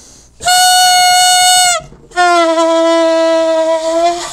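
Homemade balloon noisemaker with a rolled plastic tube, blown by mouth and giving loud, buzzy horn-like honks. One short blast starts about half a second in, and a longer, lower-pitched blast begins about two seconds in.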